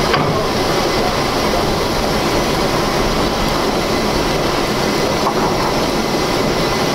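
Jordan spreader moving along the track with its ditching wing cutting through ballast and soil: a steady, loud rumble of the moving train mixed with the scraping of earth and stone against the steel blade.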